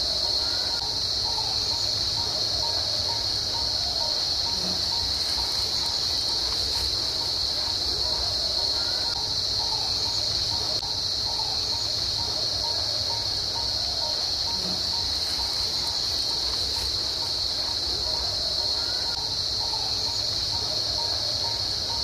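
Steady, unbroken high-pitched drone of an insect chorus, with a low rumble underneath and faint, scattered bird calls.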